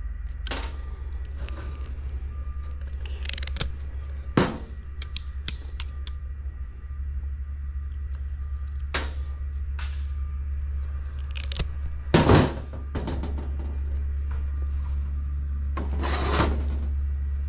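Wire strippers and wires being handled: a scatter of short clicks and snips, with two longer, louder scraping rasps, over a steady low hum.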